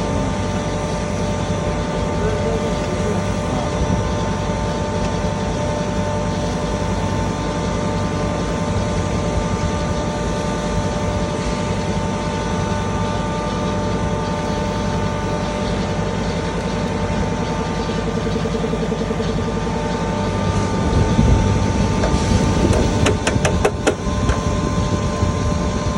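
3 HP single-phase double-chamber turmeric grinder running steadily with a constant hum and whirring. About three-quarters of the way through it grows louder and heavier, with a few sharp clicks.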